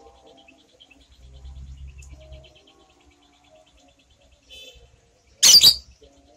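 A light-blue lovebird gives one loud, harsh shriek near the end, over faint rapid high-pitched chirping that runs throughout.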